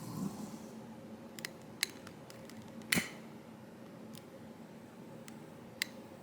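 A few faint, sharp clicks and taps, about four of them spread out, one near the middle louder than the rest, over quiet room tone.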